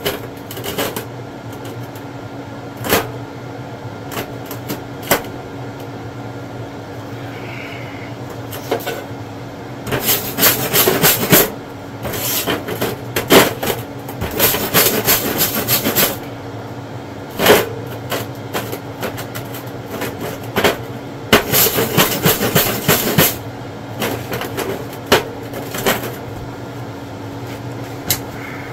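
Metalwork on the welded steel torsion-bar spring of an Eames chair. Scattered sharp metal knocks come first, then three bursts of dense scraping a few seconds long.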